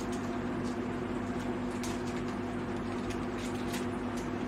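Steady low electrical hum of a room appliance, holding a few fixed pitches, with a few faint clicks from ice cream wrappers and spoons being handled.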